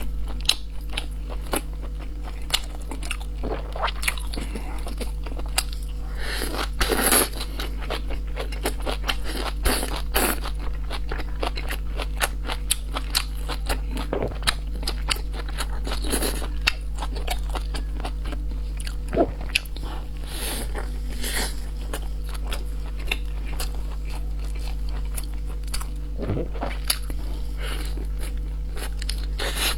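Close-miked eating of braised pork buns: irregular biting, chewing and wet clicking and crunching from the mouth, over a steady low hum.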